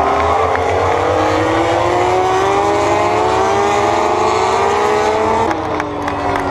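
MotoGP racing motorcycles running at high revs as they pass on the track, the engine pitch climbing slowly for about five seconds, then breaking suddenly to a falling pitch near the end.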